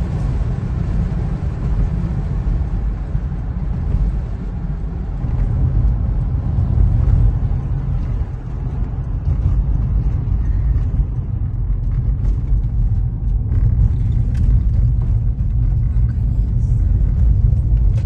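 Steady low rumble of a car's engine and tyres on the road, heard from inside the moving car's cabin, with scattered faint ticks in the last few seconds.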